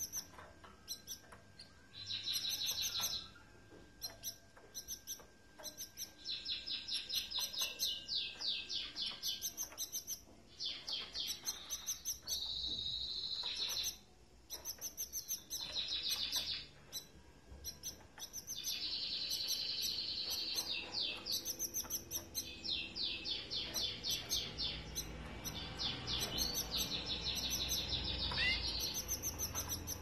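Canaries chirping in runs of rapid, high-pitched trilled notes, each run lasting a second to a few seconds, repeating with short pauses.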